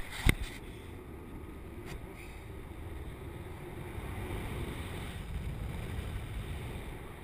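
Wind rushing and buffeting on a harness-mounted camera's microphone as a paraglider pilot spins through infinite tumbles, a steady rushing that swells slightly towards the middle. A single short knock sounds just after the start.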